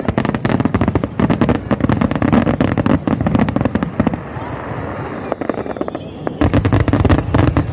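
Aerial fireworks exploding in rapid succession: a dense volley of sharp cracks and bangs for about four seconds, a short lull, then another rapid volley near the end.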